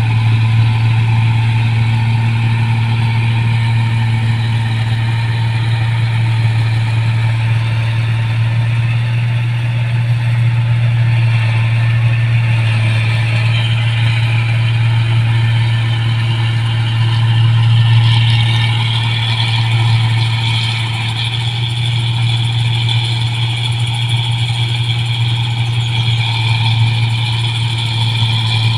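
New Holland 1545 combine harvester running steadily, a constant low engine hum with a higher whine above it that grows a little stronger partway through.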